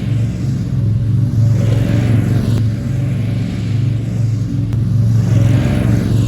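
Small engine running steadily at an even speed, with a constant low hum.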